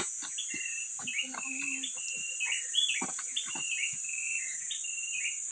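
Forest birds chirping in many short, gliding calls over a steady high-pitched insect drone, with occasional scuffs and knocks of hikers' footsteps on rock.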